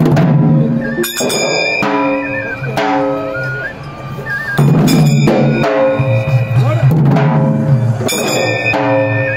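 Dhangari dhols beaten in a steady rhythm, with ringing metal cymbals and a high melody that steps up and down above the drumming.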